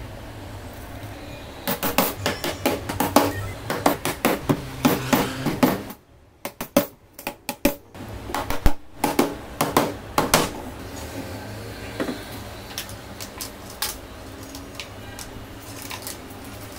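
Claw hammer driving nails into the wooden frame of a laminate-faced panel: rapid runs of sharp strikes, a short pause midway, then a few scattered knocks near the end.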